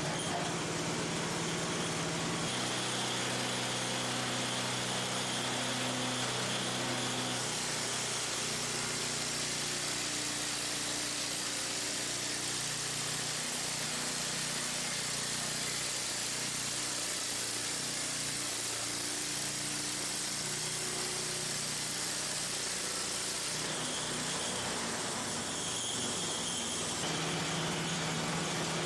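Band saw mill's gas engine running steadily, changing speed a few seconds in. From about 7 s to 24 s the band blade is cutting through a wooden beam, adding a steady hiss over the engine, before the engine settles back to its starting note near the end.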